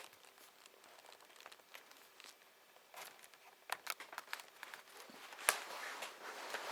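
An RJ45 Ethernet plug being handled and pushed into a laptop's network port: scattered small plastic clicks and rubbing, with the sharpest click a little over five seconds in.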